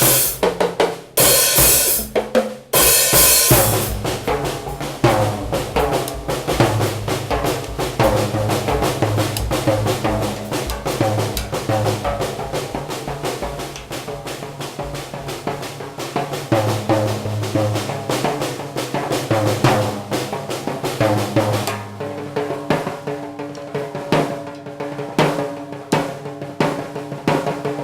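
Acoustic drum kit played without other instruments: kick, snare, hi-hat and cymbals in a busy, continuous pattern, with cymbal crashes over the first few seconds and a change of pattern about 22 seconds in.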